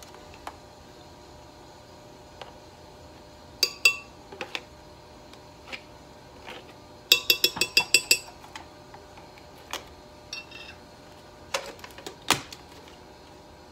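A spoon scooping yogurt and clinking against the container. There are a few scattered clinks, then a quick run of about ten ringing taps about seven seconds in, and two sharper knocks near the end.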